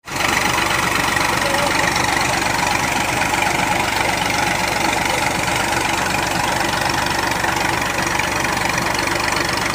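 Tractor diesel engine running steadily, powering a tube-well boring rig that turns the drill pipes and pumps muddy water up out of the bore.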